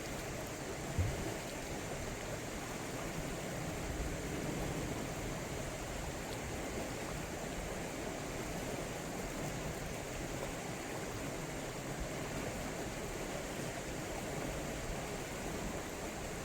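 Steady rush of a river's current flowing over rocks, with a brief low thump about a second in.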